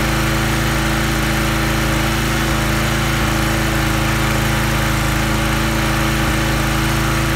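Small gas engine of a Huskee log splitter running at a steady speed.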